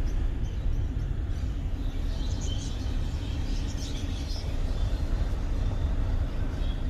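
Car interior road and engine noise, a steady low rumble, with faint high chirps about two to four seconds in.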